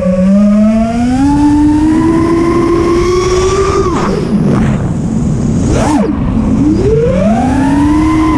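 Whine of a 5-inch FPV quadcopter's four brushless motors (iFlight Xing 2450kv) spinning HQProp Ethix S5 props, with wind rushing over the onboard microphone. The pitch climbs slowly for about four seconds, drops sharply as the throttle is chopped, swoops down and back up, then rises again near the end.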